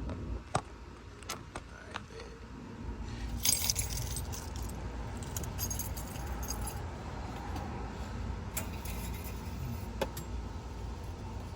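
Light metallic jingling and scattered clicks and knocks of handling, with the brightest jingle about three and a half seconds in and more between about five and seven seconds, over a low steady rumble.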